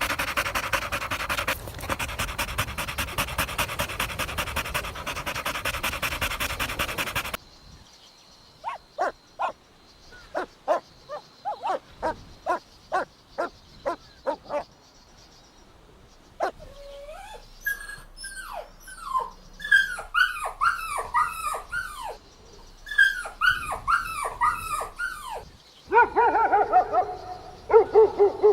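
Dog sounds: a loud, rapid rasping noise that stops abruptly about seven seconds in, then a run of short, sharp yips about once or twice a second. After that come high whimpers that each fall in pitch, and near the end a long, pitched whine.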